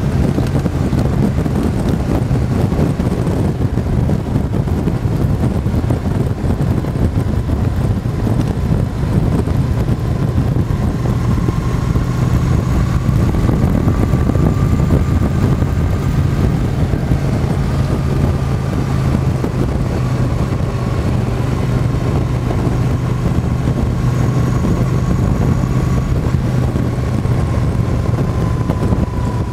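Motorcycle engine running steadily at cruising speed, with wind rushing over the handlebar-mounted microphone.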